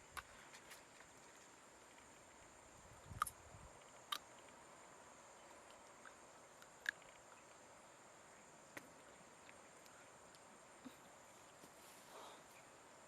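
Faint forest ambience: a steady high insect drone, with a few scattered sharp clicks and snaps.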